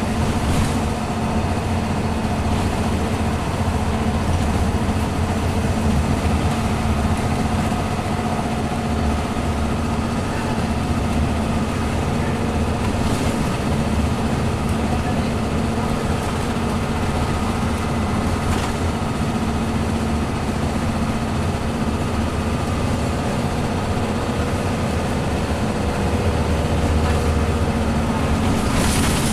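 Interior sound of a Scania N94UB Omnicity single-deck bus cruising steadily at speed. Its rear-mounted five-cylinder diesel runs at an even pitch under steady road and tyre noise, heard from inside the cabin.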